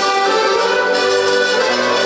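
Instrumental music with long held chords.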